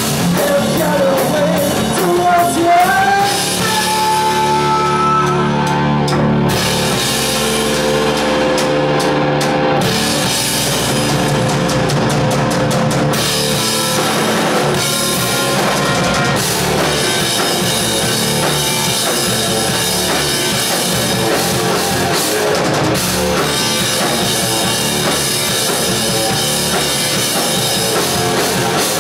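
Heavy metal band playing live: electric guitar, bass guitar and drum kit, loud and steady throughout.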